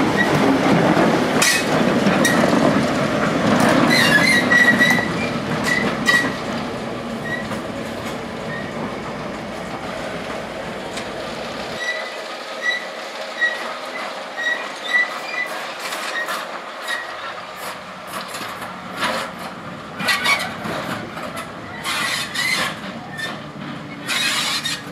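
BR Class 08 diesel shunter's English Electric six-cylinder diesel engine running as the locomotive passes close by and then draws away, loudest in the first few seconds. Short high wheel squeals and sharp clicks from the wheels on the rails follow as it moves off.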